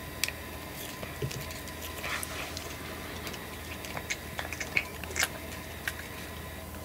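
A domestic cat chewing blades of cat grass: irregular crisp crunches and clicks, the sharpest about a third of a second in and twice around five seconds in.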